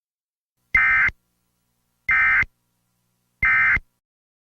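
Emergency Alert System end-of-message (EOM) signal: three short, identical bursts of SAME digital data tone, about 1.3 seconds apart, marking the end of the alert message.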